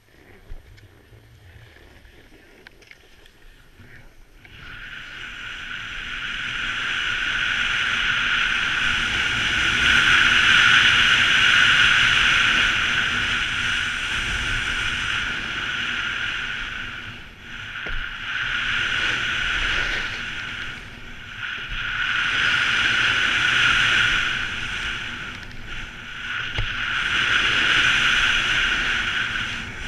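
Snowboard sliding down groomed snow: a loud, steady hiss of the board on the piste that builds after about four seconds, then swells and eases several times as the rider turns.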